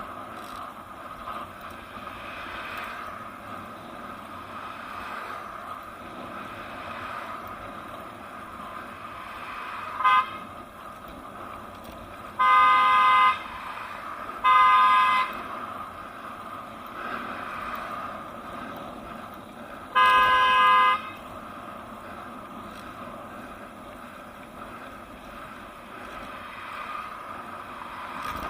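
Car horn honking behind a bicycle, four times: a short toot about ten seconds in, then two blasts of about a second each a couple of seconds apart, and another about a second long near twenty seconds in. These are a driver's impatient honks at the cyclist ahead.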